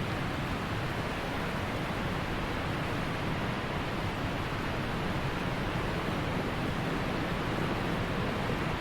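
Wind blowing steadily across open country, a constant rushing noise with no breaks.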